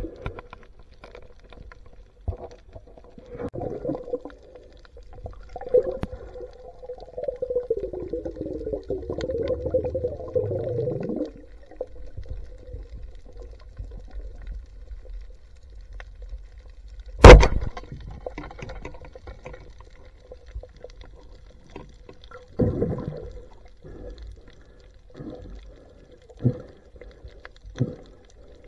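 Muffled underwater sound from a camera submerged while spearfishing: irregular swishes of moving water and soft knocks over a faint steady hum, with a longer rushing stretch in the first half and one sharp, loud click about 17 seconds in.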